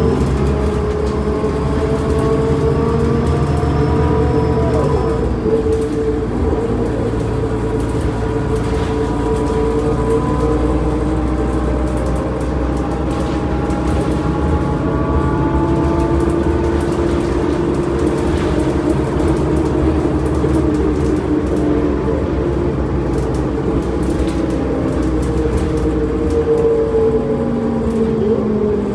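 Interior ride sound of a 2005 New Flyer D40LF transit bus: its Cummins ISL diesel engine and ZF Ecomat automatic transmission running under a constant low rumble, with engine and drivetrain tones slowly rising and falling several times as the bus speeds up and slows. Light rattles from the cabin fittings are heard throughout.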